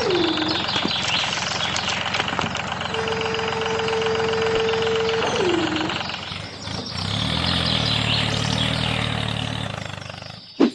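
A small motor running steadily, with a whirring tone that holds and then drops in pitch, and a single sharp click near the end.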